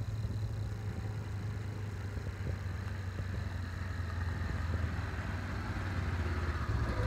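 Engine of a side-by-side utility vehicle (UTV) running as it drives up a dirt farm track, a steady low drone that grows louder as it comes close near the end.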